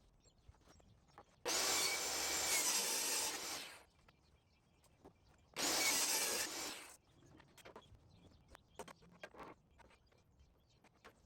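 A saw cutting wooden cabinet panels to final size in two cuts, the first about two seconds long and the second shorter, followed by light knocks of the boards being handled.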